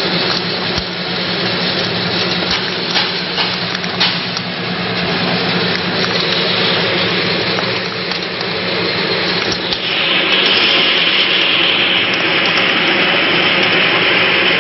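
Palm nut cracking machine running: a steady motor hum under a continuous rattle of nuts and cracked shells clicking and clattering, growing louder and brighter about ten seconds in.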